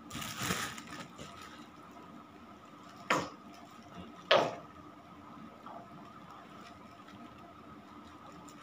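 Handling noises while Harpic toilet cleaner is added to soapy water: a short rush of noise, then two sharp knocks about a second apart, the second louder.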